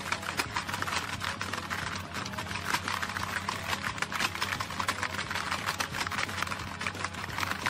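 Rapid plastic clacking of a Hungry Hungry Hippos game as hands hammer the hippo levers, the hippo heads snapping over and over without a break.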